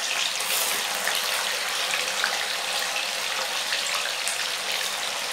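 Paneer cubes deep-frying in hot oil in an aluminium kadhai: a steady sizzle with small crackles as the oil bubbles hard around the freshly added cheese.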